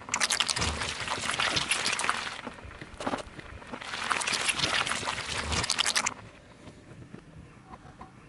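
Car tyre rolling over and squashing a block of jelly on asphalt, a wet, crackling squelch as the jelly bursts and splatters. It is heard twice, each lasting about two seconds and stopping suddenly.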